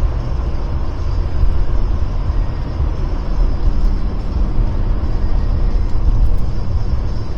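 Jeep Gladiator driving on a snowy, salted road: a steady low rumble of engine and tyre noise.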